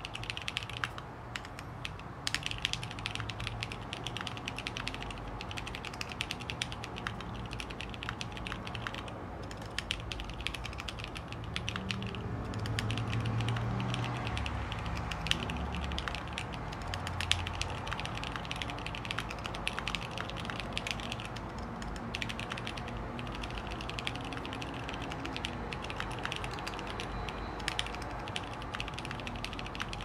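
Steady fast typing on a mechanical keyboard with lubed Tribosys 3204 switches, a carbon half plate and stabilizers lubed with Super Lube: a continuous stream of key clacks with a few short pauses.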